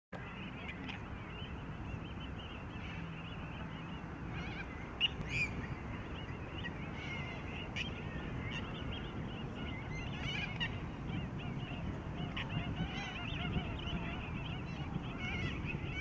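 Many birds calling at once in a continuous chorus, over a low steady rumble. A sharp click sounds about five seconds in.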